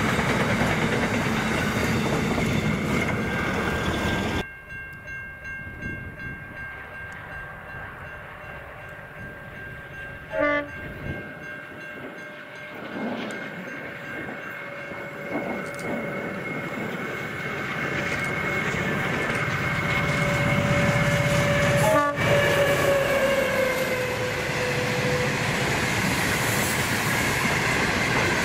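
Freight trains passing: wagons roll by with wheel clatter and a locomotive horn sounds in long steady tones. The sound drops suddenly about four seconds in, with a sharp knock near the middle, and builds back up to loud again near the end.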